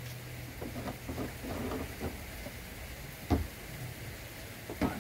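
A small 12-volt sprayer pump's low steady hum cuts off about a second in. Then come light knocks and one louder thump a little past three seconds as the screw lid of a plastic sprayer tank is handled and opened.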